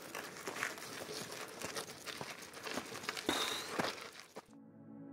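Gravel crunching and crackling in an irregular stream of small clicks, with a short high squeak a little past three seconds in. Music fades in near the end.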